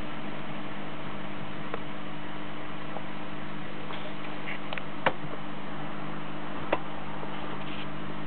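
Steady hiss with a low hum, broken by a few short sharp clicks, the loudest about five seconds in and another near seven seconds.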